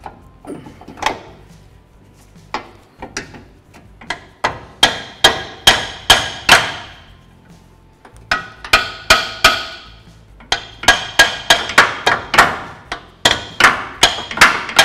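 A hammer striking steel suspension parts in quick runs of blows, about two or three a second, each blow ringing like metal. A few light knocks come first, then steady runs of harder blows from about four seconds in, knocking the lower control arm into line with its subframe bolt hole.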